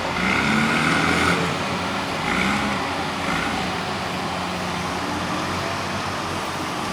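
Diesel engines of heavy earthmoving machines (motor graders and a water tanker truck) running steadily, the engine note rising briefly in the first couple of seconds.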